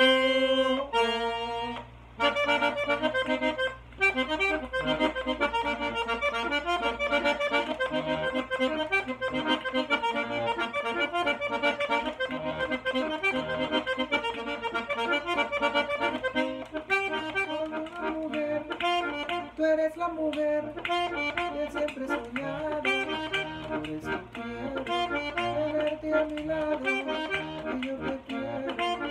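Button accordion playing a merengue melody in C minor: quick runs of treble notes with bass notes underneath, no singing.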